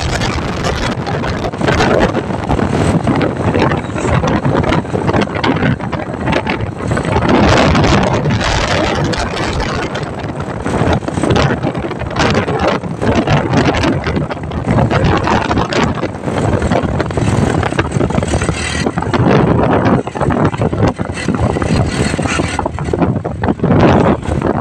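Heavy wind buffeting the microphone while riding in an open-sided motor vehicle, in uneven gusts, with the vehicle's engine and road noise running underneath.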